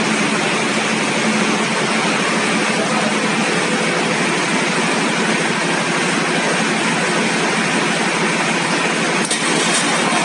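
Deutz 620-series V12 engine of a stationary generator set, running loud and steady with a fast, even firing pulse.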